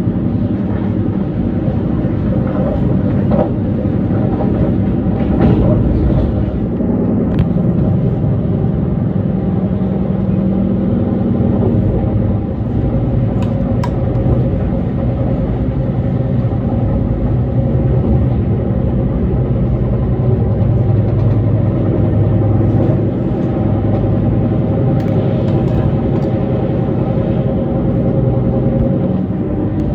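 Passenger train running, heard from inside the carriage: a steady rumble of the wheels on the track with a faint steady hum and a few light ticks.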